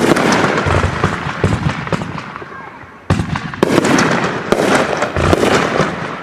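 Consumer firework cakes firing in a rapid string: dense crackling and sharp pops that die away over the first three seconds, then a sudden loud new volley with more crackling and pops.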